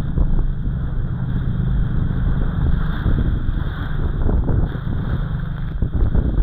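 Small motorboat running fast through choppy sea: a loud, uneven low rumble of wind buffeting the microphone and the hull slapping through the waves, with a surge of spray over the bow near the end.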